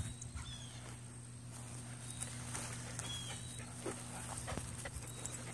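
Quiet outdoor yard ambience: a steady low hum with a few faint taps and a couple of short, high chirps.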